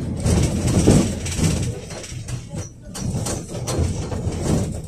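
Low, uneven rumble of a KTM-5 (71-605A) tram car running along the rails, heard from inside the car, with scattered knocks and rattles; it eases briefly in the middle.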